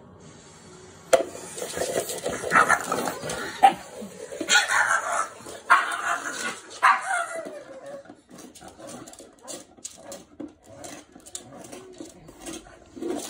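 Pug giving a few short barks between about two and seven seconds in, followed by a run of light clicks and knocks as the upturned plastic bowl is nudged over the wooden floor.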